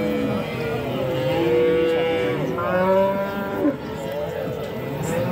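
Many cattle mooing, with several long calls overlapping one another.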